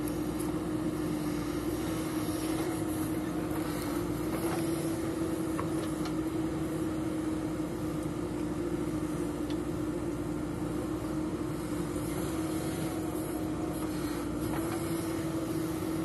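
JCB 3DX backhoe loader's diesel engine running steadily as it works the backhoe arm digging soil, a constant hum with a few faint clicks.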